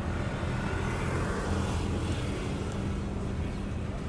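A passing vehicle: a low steady hum under a rush of noise that swells to a peak about halfway through and then fades.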